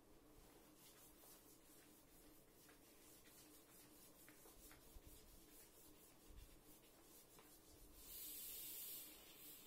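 Blackboard eraser rubbing chalk off a blackboard in faint repeated wiping strokes, with one louder, longer swish about eight seconds in.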